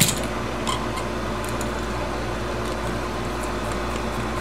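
Steady low machine hum in the room, with a few light clicks in the first second and a half as the switches and their wires are handled in the wall box.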